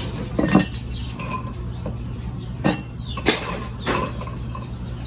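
Ice cubes dropped one by one into a Collins glass, giving about four separate glassy clinks spread over the few seconds.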